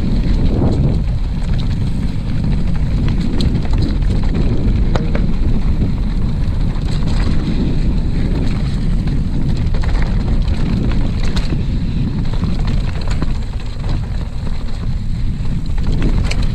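Wind rushing over the microphone of a mountain bike riding downhill at speed, a steady low rumble, with scattered clicks and rattles from the bike over rough trail.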